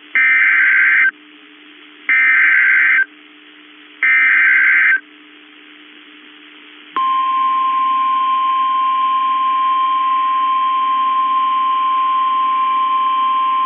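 Emergency Alert System SAME header: three one-second bursts of warbling digital data tones, about a second apart. About seven seconds in, the single steady NOAA Weather Radio 1050 Hz warning alarm tone starts and holds, signalling that a new weather warning follows.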